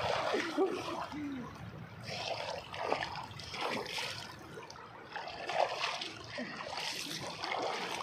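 Shallow river water splashing and trickling in a series of irregular splashes as people wade through it and one scoops handfuls of water onto his face.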